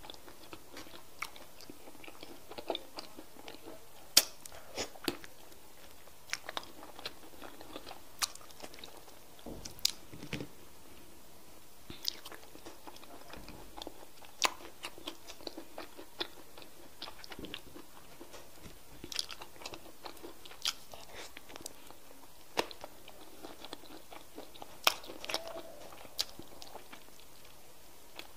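Close-miked eating sounds of chicken being chewed and bitten off the bone by hand: irregular wet mouth clicks and crunches, with several sharper snaps.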